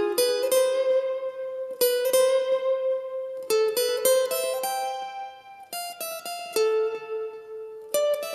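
Acoustic guitar playing a single-note lead melody, unaccompanied: notes picked one at a time and left to ring, in short phrases with brief pauses between them.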